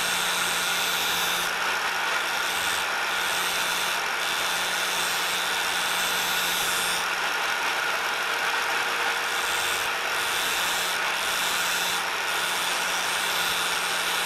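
Angle grinder running steadily with a twist drill bit held against its abrasive disc, grinding the bit's cutting lips sharp; the grinding hiss comes and goes as the bit is touched to the wheel and lifted away.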